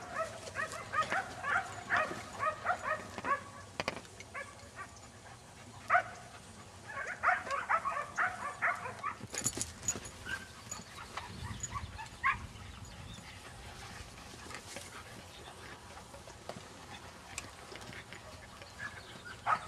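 Standard poodle puppies yipping and barking in quick, rapid runs, then only a few single yips, growing mostly quiet in the second half.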